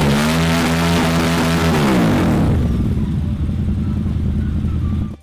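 Motorcycle engine sound, held at a steady high rev, then dropping away about two seconds in to a rough, rumbling idle that cuts off abruptly near the end.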